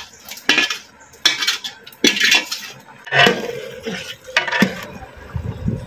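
Metal ladle scraping and knocking against a kadai and the rim of a large aluminium cooking pot, a sharp clank about every second, as fried masala is tipped into mutton broth; near the end the ladle stirs the gravy in the pot.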